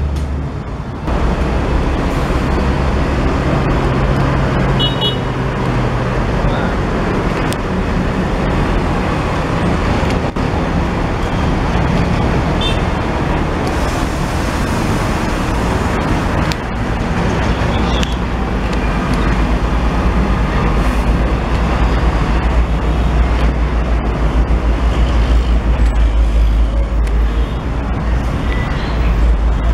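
Heavy diesel truck engine running at low speed as a UD Quester multi-axle cargo truck manoeuvres, with road traffic around it. The deep engine rumble grows heavier in the second half.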